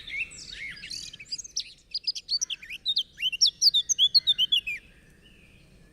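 A songbird singing: a run of high, quick chirps and twitters that speeds up into a rapid trill of sliding notes, then stops about five seconds in.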